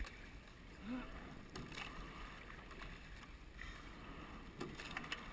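Racing eight being rowed: water running along the hull, with a short knock from the oars and rigging at each stroke, about every two seconds.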